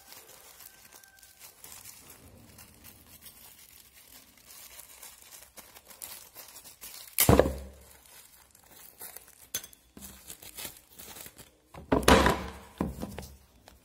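Hands opening a small packet: soft crinkling and tearing, with two loud thumps, one about seven seconds in and one near the end.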